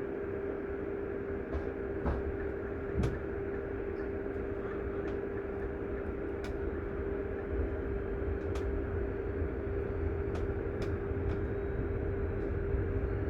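Sleeper train running on the rails: a steady low rumble with a constant hum and scattered light clicks.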